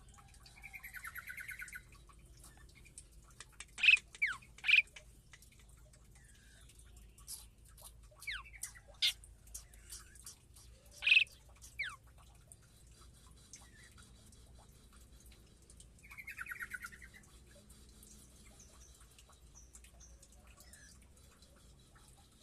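Songbirds calling: a few loud, sharp single notes about four seconds in and again near eleven seconds, scattered short chirps and downslurred whistles between them, and a rapid buzzy rattle at the start and again about sixteen seconds in.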